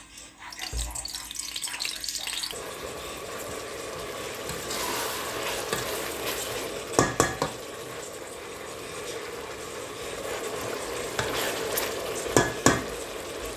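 Food sizzling in hot oil in a cooking pot, a steady frying hiss, with a few sharp clinks of a utensil against the pot about halfway through and again near the end.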